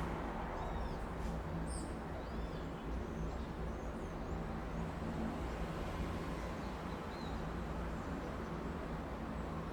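City street ambience: a steady low rumble of traffic, with short, high bird chirps and twitters coming through in the first few seconds and a few more later.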